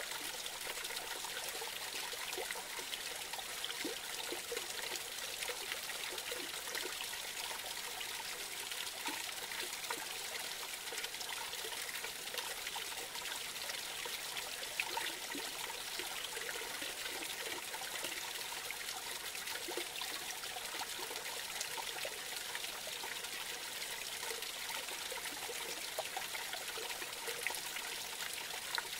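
Small forest creek splashing steadily over a low cascade, with scattered small plops of water through the steady rush.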